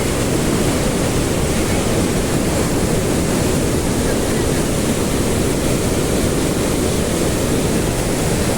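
Rhine Falls: a large river waterfall's steady, loud rush of falling water.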